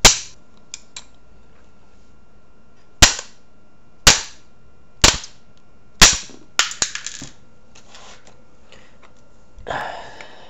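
Small hammer striking a makeshift punch to drive a pin out of a Crosman PumpMaster 760 air rifle's receiver: five sharp metal blows about a second apart, followed by a few lighter taps and clicks, then a brief rustle near the end.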